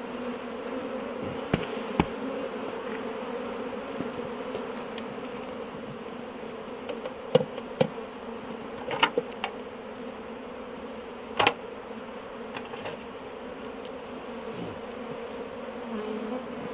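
Honey bees from an opened hive buzzing in a steady mass hum, the colony stirred up by the inspection. A handful of sharp clicks and knocks cut through it, the loudest about eleven seconds in.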